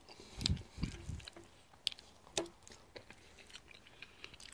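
A person chewing a mouthful of crisp griddle pancake with whipped cream, close to the microphone, with a few low thumps in the first second and scattered sharp clicks.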